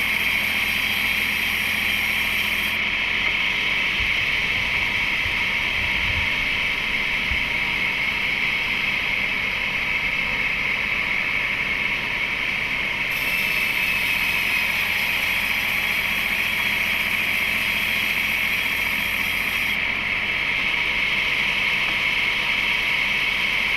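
Heavy machinery running steadily at an even pitch, with no change in load.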